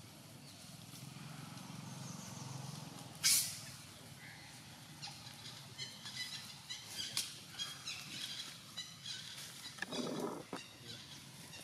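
A sudden loud, scratchy burst about three seconds in, then a run of many short high-pitched chirping animal calls, and a brief rough lower sound near the end, over a quiet outdoor background.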